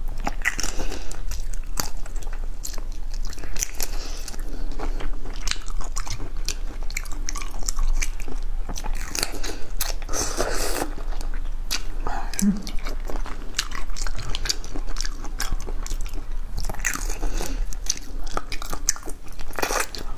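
A person biting and chewing raw shrimp in the shell, with many short, sharp clicks and cracks throughout.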